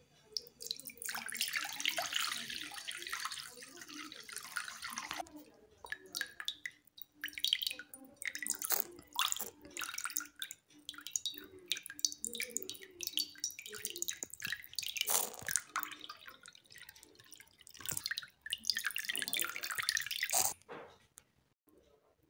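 Water poured from a jug into a glass bowl: a steady pour for a few seconds, then splashing and dribbling in several shorter pours, stopping near the end.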